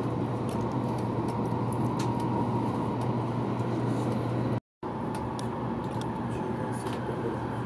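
Steady rumble and hiss inside the cabin of a running Taiwan High Speed Rail train, with a low hum under it. The sound cuts out for a moment about two-thirds of the way through.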